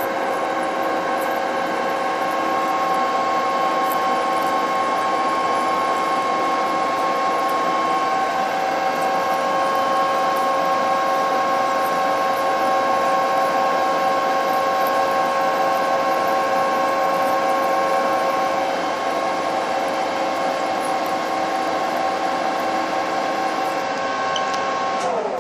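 Metal lathe running a dry thread-cutting pass, with a high-speed steel tool bit cutting a coarse 6 mm pitch thread in the bar. It is a steady whine of several fixed tones, which drop in pitch right at the end as the spindle slows.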